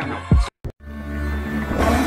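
Start of a channel intro sting: a short low thud, a moment of dead silence, then a low drone and a rumbling swell that grow steadily louder.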